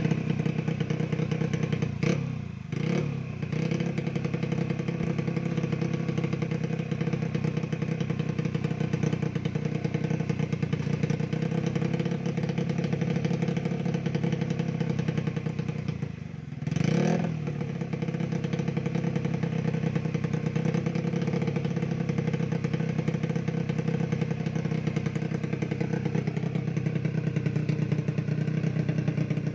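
Honda BeAT scooter's single-cylinder four-stroke engine, bored up to 130cc, running steadily. The engine speed dips and picks back up twice, about two seconds in and again about sixteen seconds in.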